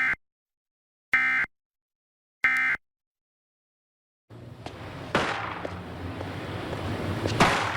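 Emergency Alert System end-of-message data tones: three short bursts of buzzing digital tone about a second and a quarter apart, marking the end of the alert. After a second and a half of dead silence, a noisy background comes in with two sharp knocks.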